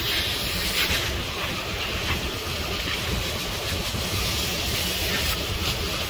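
Garden-hose spray nozzle jetting water through an air-conditioner condenser coil, a steady hiss of spray and splashing water as the coil cleaner is rinsed off.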